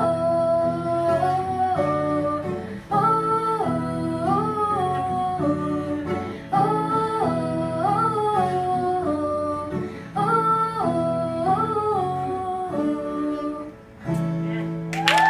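Song outro: a wordless female vocal hums the same melodic phrase over and over, about every three seconds, over acoustic guitar chords, ending on a held final chord. Applause breaks out right at the end.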